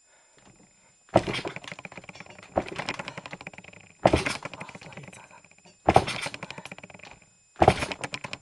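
Bare MCM 140 cc pit bike engine block being cranked over for a test start on a little injected petrol. It turns over in five short bursts, each a sharp start followed by fast clattering that dies away, and it does not catch and run.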